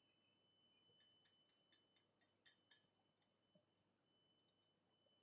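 Stainless steel mesh sieve shaken over a steel bowl to sift flour: a quick, jingly rattle of about four strokes a second, fading to faint strokes after about three seconds.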